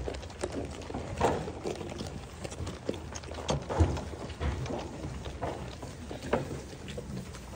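Pygmy goat kids eating from plastic feed troughs: irregular clicks, knocks and crunching as many muzzles work through the feed and bump the troughs.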